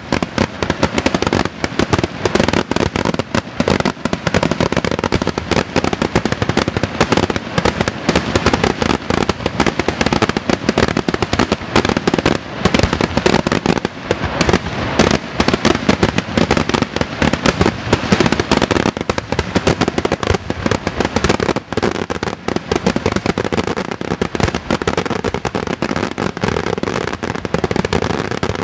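Aerial firework shells bursting in quick, unbroken succession: a dense barrage of bangs and crackling with no pause.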